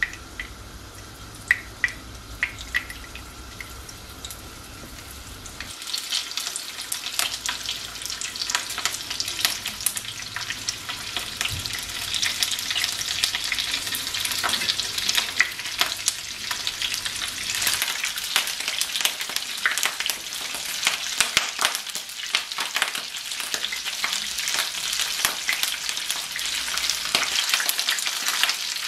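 Meatball and vegetable skewers frying in hot olive oil in a non-stick pan, with a few pops at first. About six seconds in, the sizzle swells into a steady crackling hiss as more skewers go into the oil.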